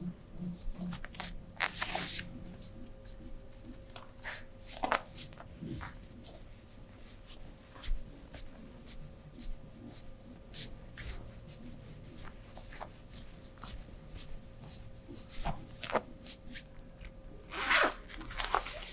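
Hands massaging: irregular rubbing and light tapping on skin and clothing, made up of many short clicks and swishes. A longer swish comes near the end, over a faint steady hum.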